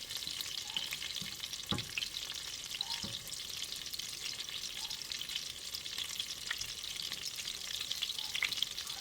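Breaded chicken cutlets shallow-frying in oil in a pan: a steady sizzle with constant small crackling pops.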